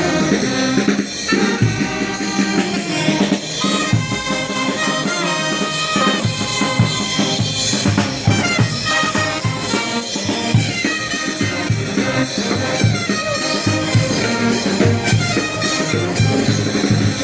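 Live band music: brass with drums playing a pasacalle at a steady marching beat.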